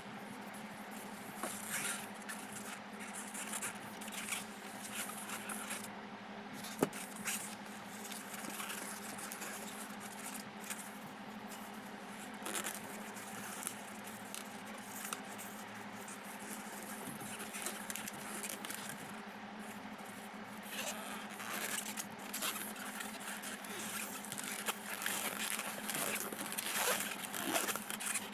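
Latex modelling balloon being handled and twisted: irregular rubbing, scraping and rustling, busier near the end, with one sharp click about seven seconds in, over a steady low hum.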